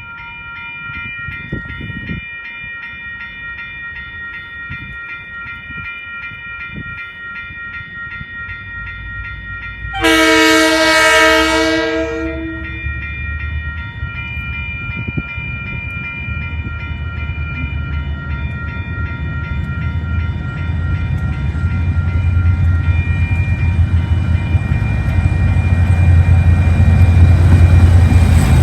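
DFT and DXB class diesel-electric locomotives approaching with a steady ringing in the background. About ten seconds in comes one loud horn blast of two to three seconds, and after it the engines' low rumble builds steadily louder as the train nears.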